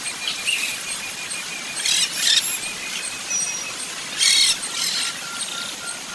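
Birds chirping: short, loud, harsh bursts of chirps about two seconds in and again a little past four seconds, over a faint, evenly repeated high note and a steady outdoor hiss.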